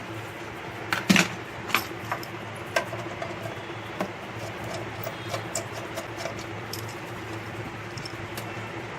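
Scattered metallic clicks and light taps from handling a computer power supply's metal case and working its screws with a hand screwdriver. The sharpest clicks fall in the first four seconds, then only small ticks, over a steady low hum.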